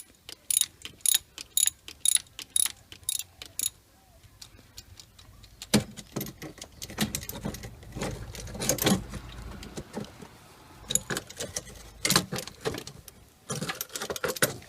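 A 3/8-inch ratchet with a spark plug socket clicking in short, even strokes, about three clicks a second, as it backs out a long-threaded spark plug. Busier clicking and handling noise follow in the middle, with more clicks near the end.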